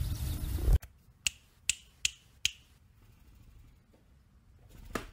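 Rumbling outdoor noise that cuts off abruptly under a second in, then four short, sharp snapping clicks about 0.4 s apart, then quiet.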